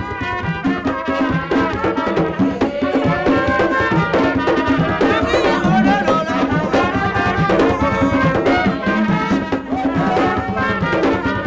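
Vodou ceremony music: brass horns playing a melody over steady drumming.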